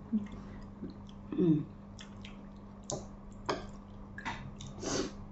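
Eating with the hands at a table: chewing and fingers tearing at fried fish and rice, with a scatter of short clicks and crackles. A brief low hum from a voice about a second and a half in.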